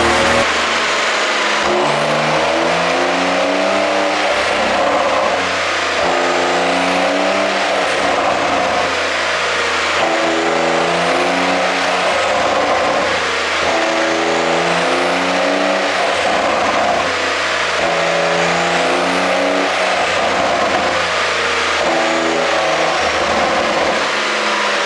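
The 3.0-litre twin-turbo flat-six of a Porsche 911 992 Carrera 4S, on an ECU tune made for exhaust pops, revving up and dropping back again and again, about every two to three seconds.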